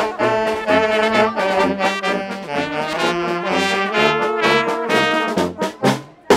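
A marching brass band plays a lively tune, with trombone, trumpets and saxophone over a sousaphone and drum beat of about two pulses a second. The music drops away briefly just before the end, then comes back in with a loud attack.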